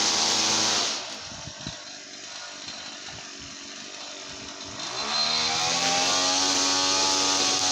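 Brush cutter's small petrol engine running at high revs, dropping to idle about a second in, then revved back up about five seconds in and held at full speed.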